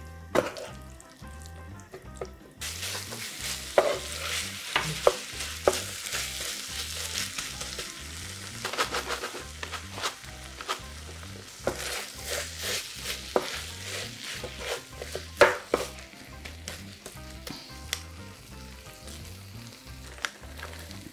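Rice stir-frying in a nonstick pan of leftover dakgalbi sauce: a steady sizzle, with a silicone spatula and a wooden spoon scraping and clacking against the pan. The sizzle swells about two and a half seconds in.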